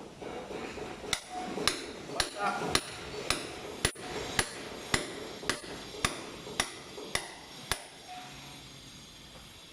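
Hammer blows struck at a steady pace, about two a second, thirteen in a row, then stopping near the end.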